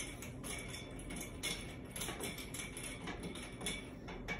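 Small 7075 aluminium suppressor baffles clinking and rattling lightly as they are handled and set into a glass of Simple Green and water: a string of faint light clinks.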